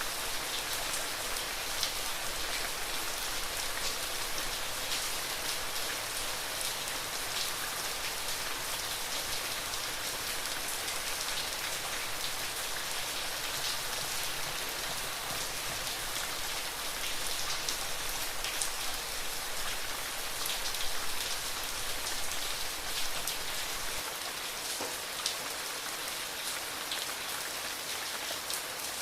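Heavy rain falling steadily: an even hiss dotted with many small ticks of drops hitting surfaces.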